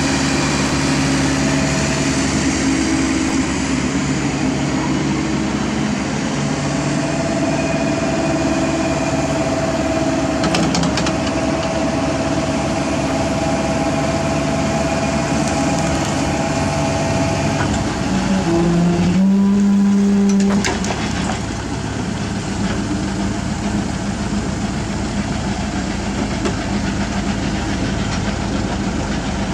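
Diesel engine of a CAT 305.5E2 mini excavator running steadily. Past the middle, a louder held tone sounds for about two seconds, then the engine settles to a quieter steady note.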